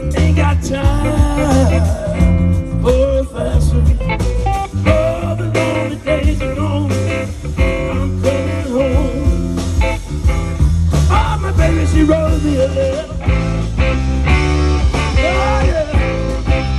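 Live rock band playing: electric guitars, bass guitar and drums with a steady beat, and a melody that bends up and down in pitch over the top.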